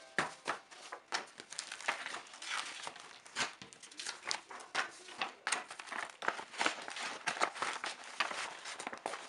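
Crinkling and rustling of something being handled, broken by many small sharp taps and clicks throughout.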